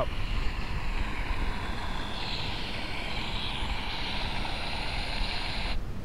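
Wind rumbling on the microphone over steady outdoor hiss, with a high buzzing hiss that comes in about two seconds in and stops suddenly near the end.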